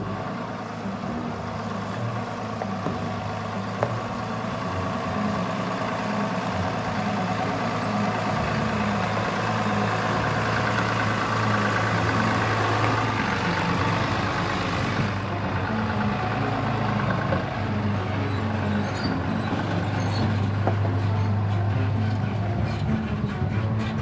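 Pickup truck hauling a truck camper, its engine running steadily at low revs as it creeps up a steep dirt hill in four-wheel-drive low.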